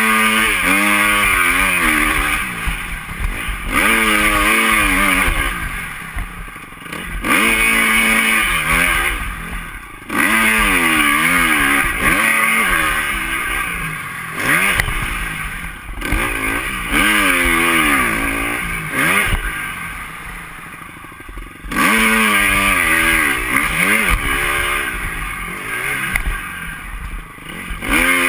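2010 KTM 250 SX-F single-cylinder four-stroke motocross engine under way, revving hard and backing off over and over, its pitch climbing with each burst of throttle and dropping as the throttle closes.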